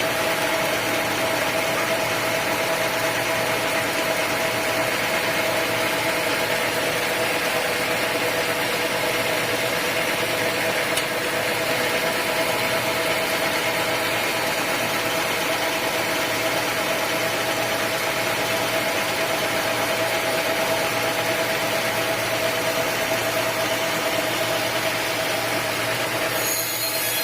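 Sawmill machinery running steadily with a humming tone, the sound shifting briefly just before the end.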